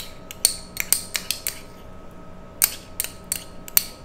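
Metal spoon scraping and clicking against a small ceramic bowl as thick tomato paste is scooped out onto chicken, in two runs of quick clicks.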